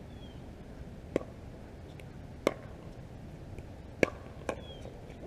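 Pickleball paddles striking a plastic pickleball in a rally: three sharp pocks about a second and a half apart, with a fainter knock just after the third.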